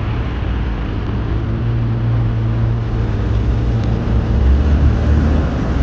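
Steady low rumble of a car on the move: engine hum and road noise.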